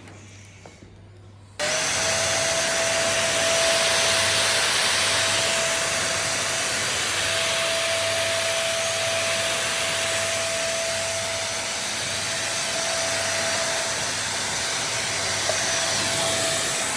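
Corded 600 W stick vacuum cleaner switched on about a second and a half in, then running steadily with a motor whine over the rush of air.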